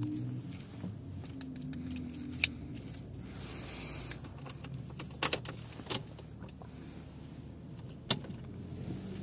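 Car keys jangling and a handful of sharp clicks as the key is fitted into the Opel Astra K's ignition lock and turned to switch the ignition on.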